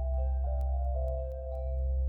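Ambient background music: a steady low drone under soft held melodic notes that change pitch every half second or so, with faint regular clicks.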